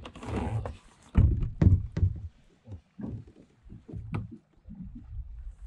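Handling noise in a kayak: irregular low knocks and rustling from a rod, gear and clothing, with a sharp click about four seconds in.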